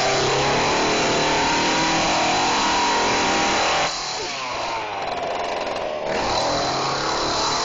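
Chainsaw engine running and being revved. It is loud and steady for about four seconds, then drops back, with the pitch rising and falling.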